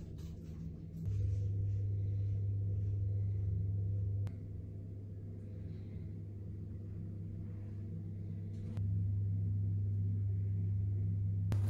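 A steady low hum in a small tiled shower room. It gets louder and softer in steps at about one, four and nine seconds in.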